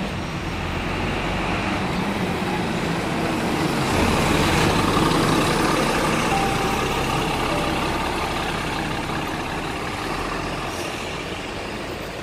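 Double-decker bus engine running close by, the noise swelling to a peak about four seconds in and then easing off.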